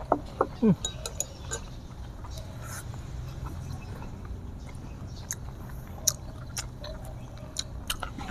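People chewing food with their mouths closed, with scattered small wet clicks and smacks over a steady low hum. Within the first second there are a few short falling vocal sounds.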